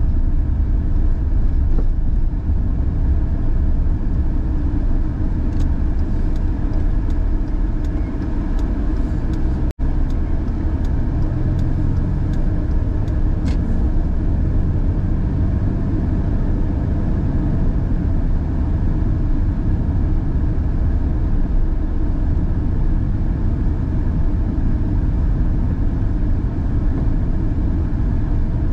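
Car driving at a steady speed: a constant low rumble of road and engine noise, which cuts out for an instant about ten seconds in.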